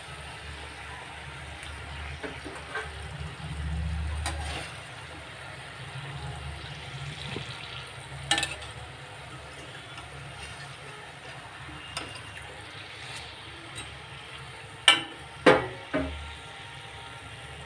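Gujiyas deep-frying in hot ghee, a steady sizzle, as a wire-mesh skimmer lifts them out; sharp metal clinks of the skimmer against the pan, three close together near the end being the loudest.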